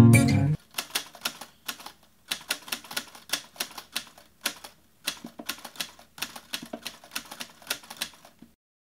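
An acoustic guitar strum cuts off abruptly about half a second in. Then come typewriter key clicks in quick, irregular runs with short pauses between them, stopping shortly before the end.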